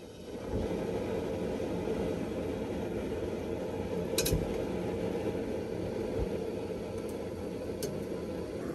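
Gas camp stove burner turned on and lit with a match, then burning with a steady rushing sound that starts about half a second in. A sharp click comes about four seconds in, with fainter ones near the end.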